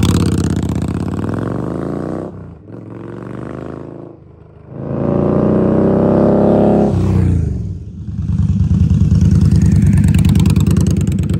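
Indian Scout Rogue V-twin with Radiant Cycles GP Shorty slip-on exhausts, very loud. It accelerates away with rising pitch and eases off about two seconds in. From about five seconds in it accelerates hard again, the pitch drops around seven seconds in, and it settles into a steady, loud, pulsing rumble at low revs.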